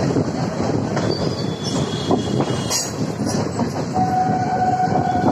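Running noise of an Indian Railways passenger coach, heard from its open doorway: a steady rumble and rattle of wheels on track with scattered clicks. About four seconds in, a steady high tone sets in and holds.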